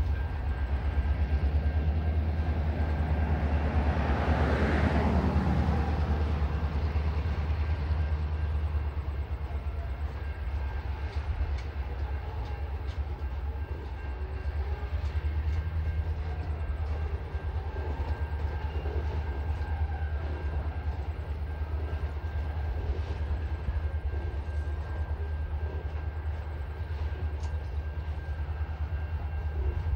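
Container freight train wagons rolling past with a steady low rumble and faint wheel clicks. The sound swells louder for a moment about five seconds in.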